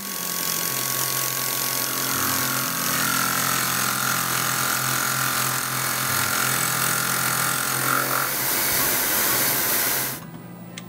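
Tormach PCNC 1100 CNC mill taking a milling pass across the end of a metal block: a loud steady hiss with a thin steady whine in the middle of the cut. The sound drops off abruptly about ten seconds in as the cut ends.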